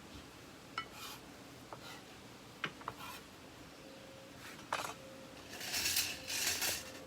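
Kitchen utensils and dishes clinking and knocking in a few separate sharp clicks, then a louder stretch of scraping noise lasting over a second near the end.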